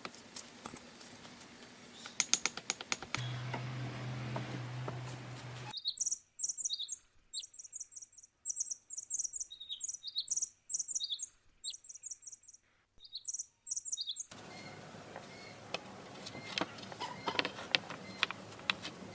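Small bird chirping: rapid, repeated high chirps for about eight seconds in the middle, over a dead-quiet background. Light irregular tapping and clicking comes before and after the chirps, with a low steady hum for a few seconds before the birdsong starts.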